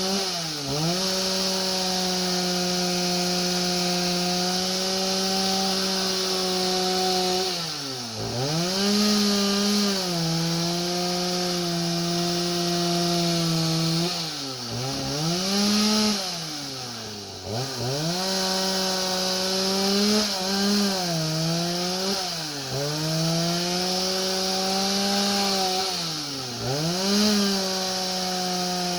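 Two-stroke chainsaw engine on a homemade sawmill running at high revs through a cut. Its pitch drops sharply and recovers several times as the cut loads it down.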